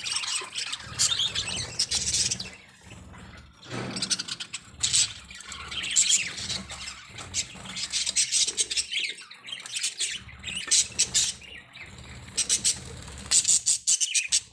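Several budgerigars chirping and chattering in quick, overlapping high-pitched calls, with brief lulls around three seconds in and again near the ten-second mark.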